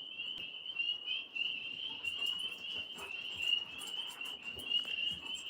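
Chorus of frogs calling: a continuous high-pitched trilling that pulses several times a second at a nearly constant pitch.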